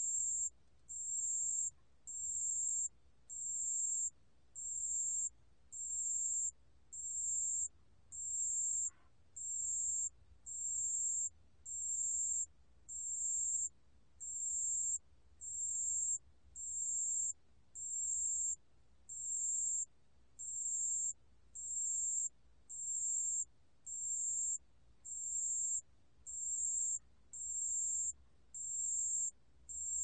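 담색방울벌레 (a small Korean bell cricket) calling at 28 °C: a high, thin trill repeated steadily, each about two-thirds of a second long with a short pause, about once a second.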